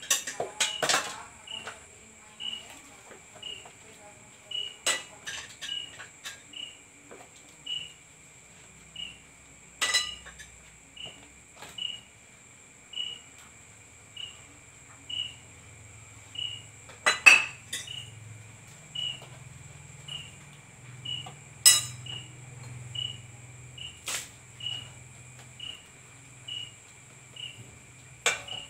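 Dishes clinking and knocking now and then as they are washed by hand, the loudest clinks about seventeen and twenty-two seconds in. Behind them crickets keep up a steady high trill, with one chirping evenly about every two-thirds of a second.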